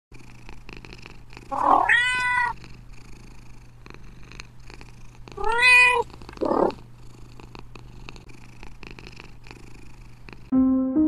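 Domestic cat purring steadily, with two short calls that rise and fall in pitch, about two and six seconds in. Chiming music starts near the end.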